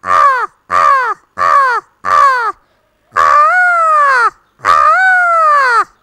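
A woman imitating a crow with her voice: four short caws in quick succession, then two long drawn-out caws, each one dropping in pitch at the end.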